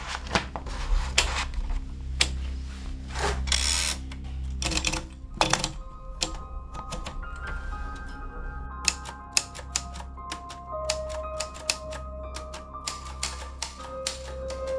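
Typewriter keys clacking in irregular runs of sharp strikes, denser in the second half, over background music with a steady low drone and held notes.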